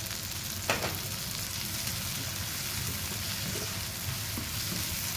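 Mushrooms, onions, garlic and pickled pearl onions sizzling steadily in oil and butter in a nonstick wok as they are stirred with a slotted spatula, with one sharp knock about a second in.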